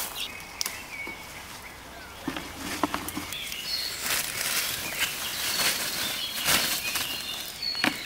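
Leafy plants rustling, with a few sharp stem snaps, as wild greens are picked by hand. Birds chirp throughout. The rustling grows denser about halfway through.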